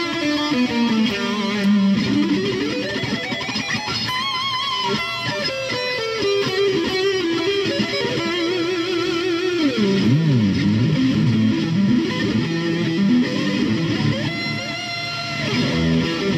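Distorted electric guitar played through a Boss Katana 100 MkII amp: single-note lead lines with vibrato on held notes, and quick sliding notes up and down about two-thirds of the way through.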